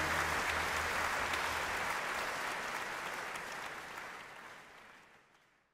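Audience applauding after an orchestral performance, fading out over about five seconds.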